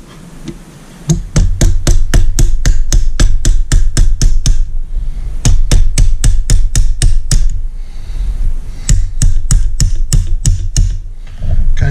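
Mallet striking a punch in quick blows, about five a second, in three runs with short pauses between. The punch is driving the wrist pin out of an outboard engine piston to free it from its connecting rod.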